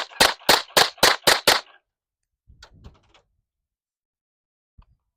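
Walther WMP SD .22 Magnum semi-automatic pistol fired rapidly through a Silencer Co. Switchback rimfire suppressor. These are the last six or seven shots of a ten-round string, about four a second, ending about a second and a half in. Faint clinks follow, then a single small click near the end.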